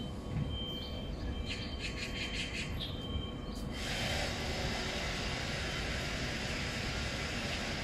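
Electric order picker working its fork lift: a steady low motor hum, with a rapid ticking, about five a second, for a second or so, then a steady hiss from about four seconds in.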